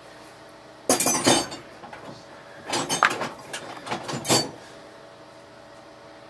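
Metal hand tools clinking and clattering against each other, in two bursts: one about a second in, and a longer one from nearly three seconds to past four.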